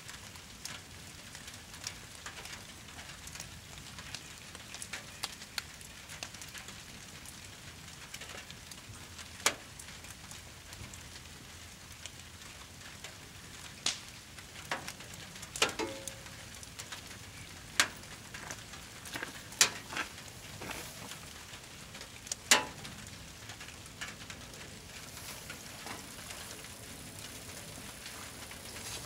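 Brush pile burning in a stone-ringed pit, crackling with scattered sharp pops, the loudest about two-thirds of the way through, over a steady hiss of rain.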